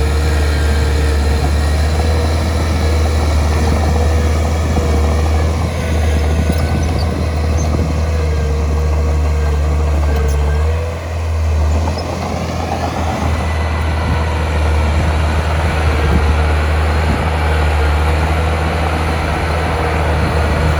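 Heavy diesel engine of earthmoving machinery running steadily, a low drone with a steady whine over it, dipping briefly about eleven seconds in and then running on.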